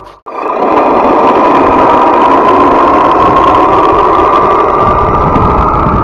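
Small electric motor and gear drive of an RC scale crawler whirring steadily under load as it climbs. The whir starts abruptly about a quarter second in.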